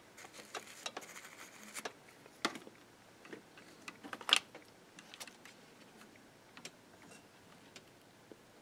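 Scattered small clicks and taps of tools and metal parts being handled while working inside an old tape recorder's chassis. The sharpest click comes about four seconds in.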